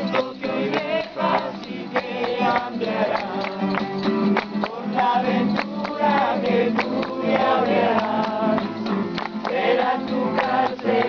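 Music: voices singing a song over a steady rhythmic beat of sharp strikes.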